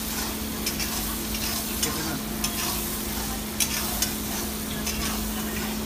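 A long-handled metal spatula stirring a thick egg and chana dal masala in a black wok, the food sizzling as it fries, with scattered sharp scrapes and clicks of metal against the pan. A steady low hum runs underneath.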